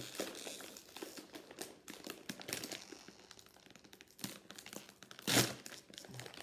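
Snack bag crinkling and rustling as it is handled, with many small crackles and one louder rustle about five seconds in.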